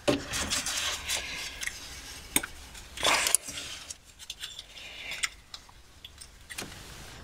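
Light metallic clicks and scrapes of hand work on top of a Skoda Felicia gearbox as a small spring is unhooked, with a louder scrape about three seconds in.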